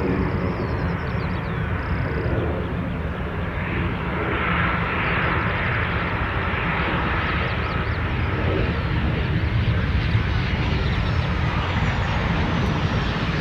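Aircraft engine noise, a steady dense rumble that grows a little louder from about four seconds in as the plane moves along near the runway.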